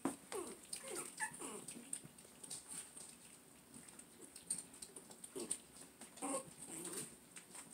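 Young puppies giving short, faint, falling whines and squeaks, a cluster in the first two seconds and more around six to seven seconds in, as they crowd their mother.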